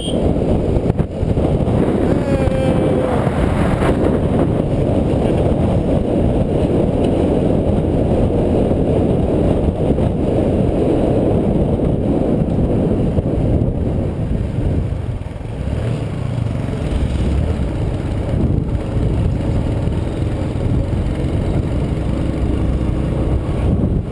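Small motorcycle taxi running steadily along a rough dirt road, its engine noise mixed with a dense rush of road and wind noise.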